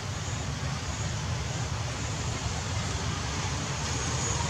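Steady outdoor background noise: an even hiss with a low rumble underneath, with no distinct event standing out.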